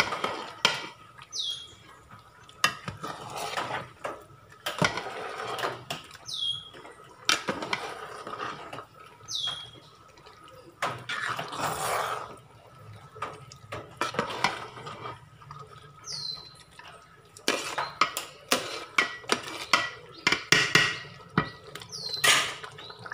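Steel spoon stirring soaked long-grain rice through simmering biryani liquid in a large metal pot: repeated knocks and scrapes of the spoon against the pot, with wet swishing of rice and water.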